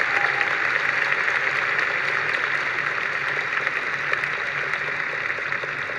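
Large arena crowd applauding steadily, a dense patter of many hands clapping, easing off slightly toward the end.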